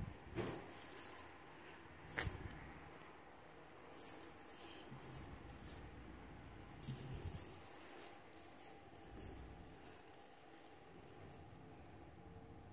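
Gold-tone metal link chains jingling and clinking as they are handled, in several short bursts, with quieter stretches near the end.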